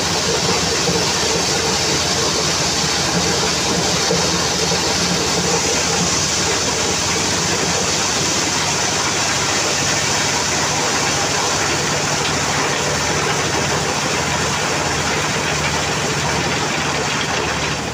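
Diesel-driven mobile corn sheller running steadily under load: a constant engine drone with a dense, even rush of corn being shelled over it.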